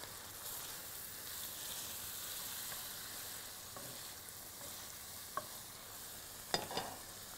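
Onions, mushrooms and soy sauce sizzling in butter in a frying pan with the beef strips, a steady hiss. A few sharp clinks of a utensil against the pan come about five and a half seconds in and again a second later.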